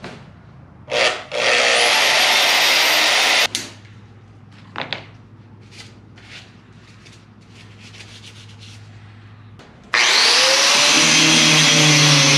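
A power tool is run twice: once about a second in for about two seconds, and again near the end. Each time its motor spins up and it grinds into material with a loud, harsh hiss, which is the body lift puck being shaved down to size. Between the two runs come short knocks and a low steady hum.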